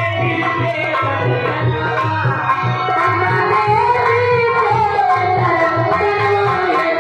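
Live Indian folk music: a drum beats a steady rhythm under a sliding melody line.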